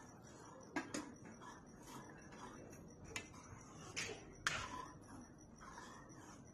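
Metal spoon stirring saag in a metal kadhai, clinking sharply against the pan about five times.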